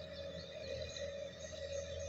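Sonalika DI-50 RX tractor's diesel engine running steadily at a distance, a low hum, with high short bird chirps over it.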